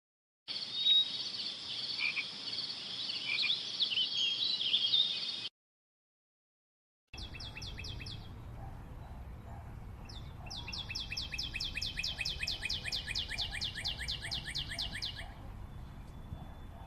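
Two short nature-sound clips. First, small birds chirping busily for about five seconds. Then, after a brief silence, an animal call of rapid, even pulses, about five a second, over a low ambient hum.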